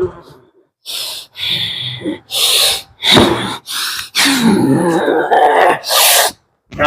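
A person making a quick run of about eight forceful, breathy gasps and exhalations, some with a little voice in them, each about half a second long.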